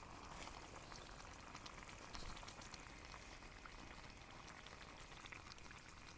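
Beef and vegetables cooking in a pot, bubbling and sizzling with many small crackling pops.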